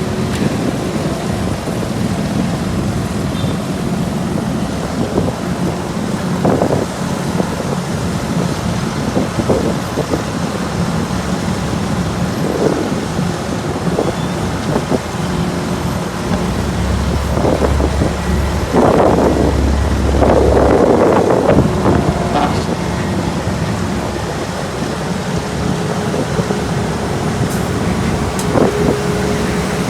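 Diesel engines of asphalt paving machinery running steadily. A louder low rumble swells for a few seconds past the middle, with a few short knocks scattered through.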